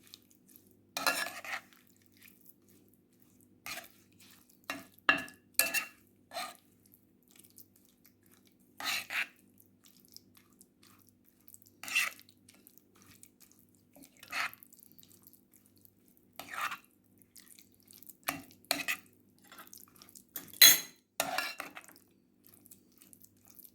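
A spoon knocking and scraping against a bowl in short, irregular clinks every second or so while a thick walnut, pomegranate-molasses and olive-oil paste is stirred, over a faint steady hum.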